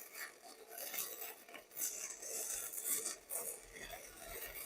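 Faint, irregular metallic scraping and light clinks, as of metal pieces being handled and rubbed against each other.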